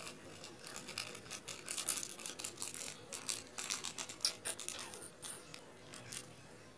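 Plastic seasoning sachet crinkling and rustling in the fingers as it is squeezed and shaken empty over a glass bowl, fried shallots spilling out. Quick irregular scratchy crackles that die away near the end.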